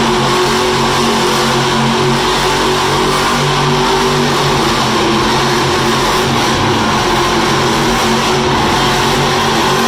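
Monster truck's supercharged V8 engine running at high revs as the truck spins donuts in the dirt: a loud, steady engine drone whose pitch wavers slightly.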